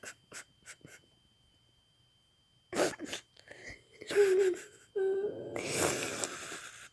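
Irregular heavy snoring: a few light breaths, a quiet pause, then snorting breaths from about three seconds in, two of them with a brief droning tone, and a long rasping snore near the end.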